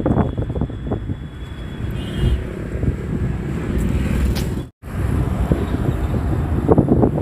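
Wind buffeting the phone's microphone at an open car window, over the rumble of a car driving on the road. The sound cuts out for a moment about two-thirds of the way through.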